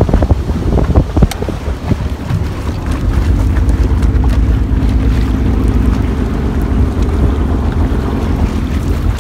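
Wind buffeting the microphone on a motorboat under way across choppy lake water, with a steady low engine drone beneath it. A few knocks come in the first couple of seconds.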